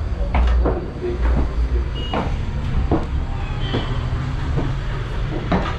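Footsteps climbing a wooden staircase, a thud about once a second, over a steady low rumble.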